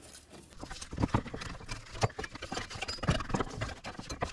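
Ribbed rubber serpentine belt being pulled off the engine's pulleys by gloved hands, making irregular knocks, clicks and scuffs as it slips over the grooved pulleys and slaps against the brackets.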